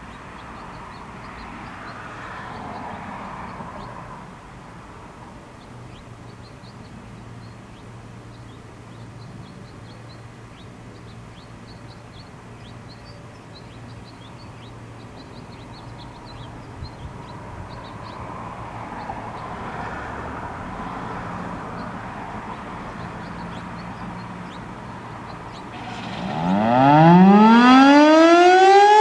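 Federal Signal STH-10A three-phase single-tone chopper siren winding up for its daily test, about 26 seconds in, after a long stretch of faint background noise. Its pitch rises steeply over about three seconds and it becomes very loud, heard from inside a car parked right next to it.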